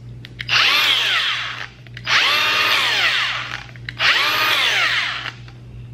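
Milwaukee M18 cordless angle grinder triggered three times in a row with no load, the motor whining up to speed and then winding down as the trigger is let go each time.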